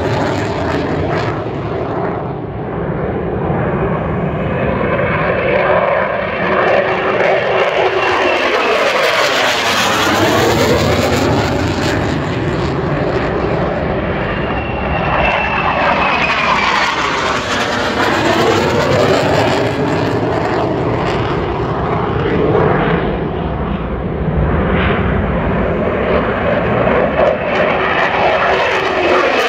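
Military fighter jets flying overhead just after takeoff: a loud, continuous jet roar whose tone sweeps as they pass over, once about a third of the way in and again past halfway.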